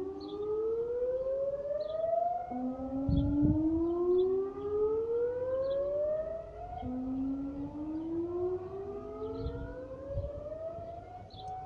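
Air raid siren sounding, its pitch rising over about three seconds, then dropping back and rising again, three times over, and levelling off into a steady tone near the end. A few low thumps come through about three seconds in and again around ten seconds.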